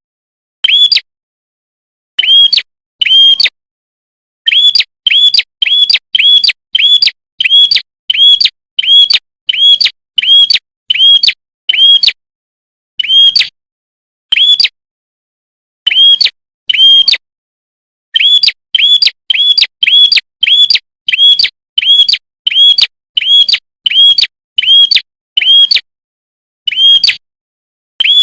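Prenjak kepala merah songbird calling: one sharp, high chirp note repeated over and over, about one and a half notes a second in runs broken by short pauses, with dead silence between the notes.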